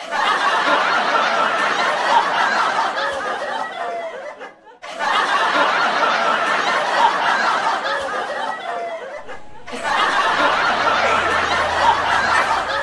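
Canned laughter: a crowd laughing, the same short clip played three times in a row with brief dips between.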